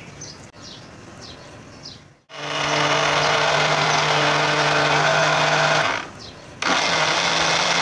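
Electric blender grinding browned onions, tomatoes, ginger-garlic paste and green chillies into a wet masala paste. The motor runs steadily from about two seconds in, stops for a moment about six seconds in, then starts again.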